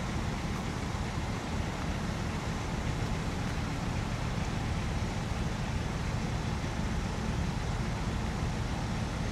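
Network Rail track-cleaning multi-purpose vehicle standing with its diesel engine idling: a steady low rumble that does not change.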